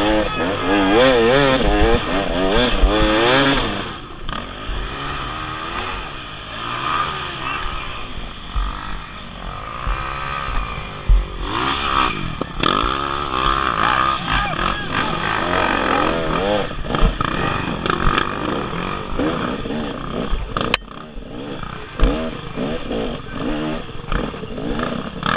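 Off-road dirt bike engine revving hard in quick up-and-down blips for the first few seconds, then running lower with repeated rises and falls in revs.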